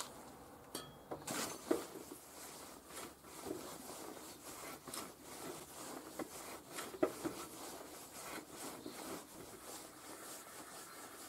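Hand tap in a tap wrench being turned in the threaded hole in the end of a rusty excavator roller's shaft, held in a bench vise: irregular metal scraping and rubbing with scattered sharp clicks as the tap cuts through the old threads.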